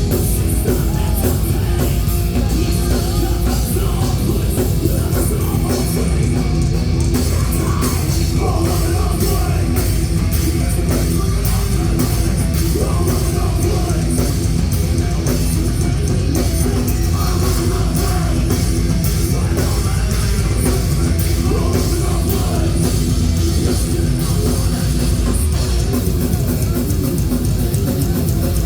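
Loud heavy metal rock music with drums and guitar and some singing, playing steadily.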